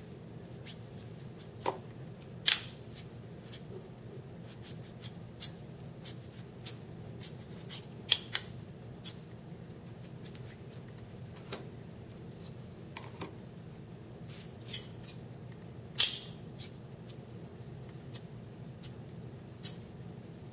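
Thin square neodymium block magnets clicking sharply as they snap together and are slid apart: a string of irregular metallic clicks, the loudest about two and a half, eight and sixteen seconds in.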